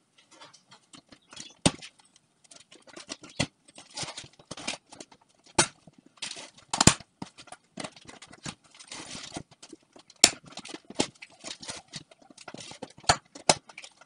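Irregular clicks, knocks and rustles of packaging being handled while a submersible pump is unpacked, with a handful of sharper knocks spread through.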